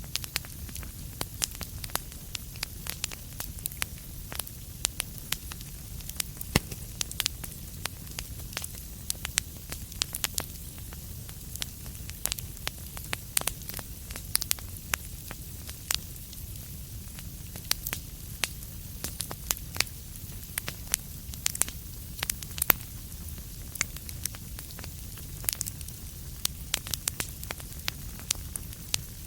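Wood fire crackling, with frequent irregular sharp pops and snaps over a steady low rush.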